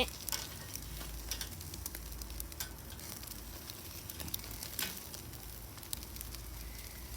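Meat sizzling on a barbecue grill, with scattered sharp pops and crackles over the steady hiss.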